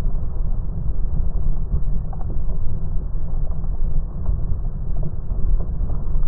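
Glass electric kettle at a full rolling boil: water bubbling hard over the element, heard as a steady low rumble.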